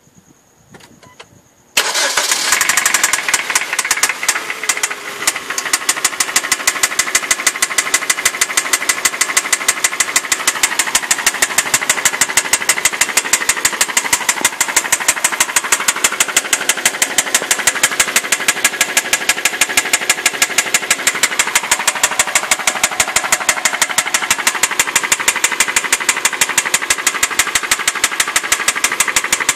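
2006 Hyundai Sonata engine starting about two seconds in, then running with a loud, rapid, evenly spaced clicking. The owner traces the clicking to the engine having run low on oil; it grew worse after an oil and filter change and louder still with a stop-noise additive.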